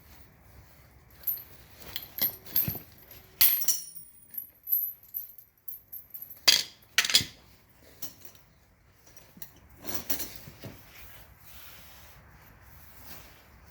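Steel tire chain links clinking and jangling as the chain is handled, with scattered sharp metal clinks, the two loudest a little past the middle.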